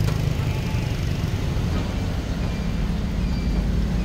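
Street traffic: a steady low rumble of passing motorbike and car engines.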